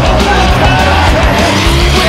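Loud background music with a heavy, steady low end.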